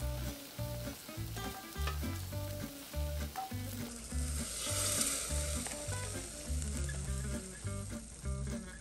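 Hot braising liquid with spare ribs and vegetables being poured from a clay donabe into a stainless mesh strainer over a bowl, a liquid hiss strongest about halfway through. Background music with a steady beat plays throughout.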